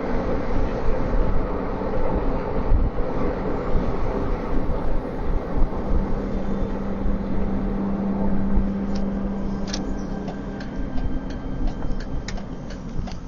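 Car driving, with steady road and engine rumble heard from inside the cabin. A low steady hum joins it for a few seconds in the middle, and scattered sharp clicks come in over the last few seconds as the noise eases a little.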